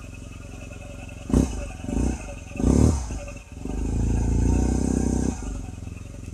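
Yamaha T-MAX scooter's parallel-twin engine idling, blipped three times and then held at higher revs for about a second and a half before dropping back to idle. The revving is a charging test: the new stator coil's AC output is being read, about 20 volts, a sign that it is charging properly.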